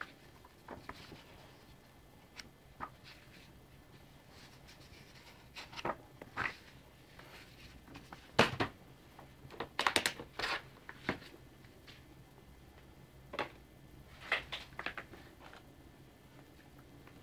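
Paper booklets and leaflets being handled and lifted out of a cardboard box: scattered rustles, slides and light taps, loudest about halfway through.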